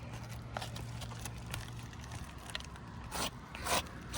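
Scuffing and scraping on asphalt roof shingles, with scattered light clicks and two louder scuffs near the end, over a low steady hum.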